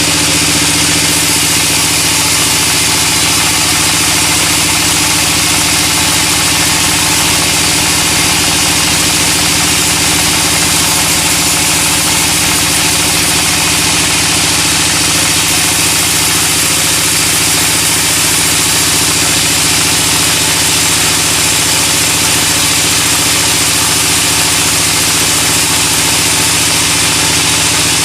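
Sawmill machinery running steadily: a constant engine or motor hum with a dense high hiss over it, unchanging in level.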